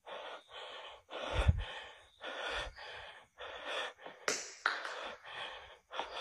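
A person breathing heavily and fast close to the microphone, short gasping breaths in and out about twice a second.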